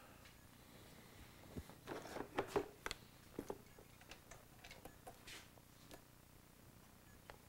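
Faint clicks and light knocks of a Honda CRF450R carburetor being handled and bumped as it is worked back into place in the frame, most of them between about one and a half and three and a half seconds in.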